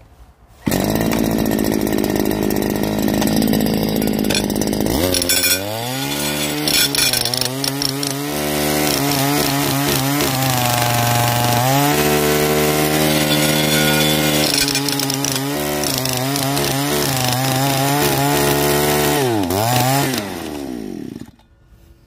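The small two-stroke petrol engine of a handheld power trenching shovel (gas jackhammer) is running under throttle. It starts loud and rough, then its pitch rises and falls again and again as the throttle is worked, and it holds high for a few seconds in the middle. Near the end it winds down and stops.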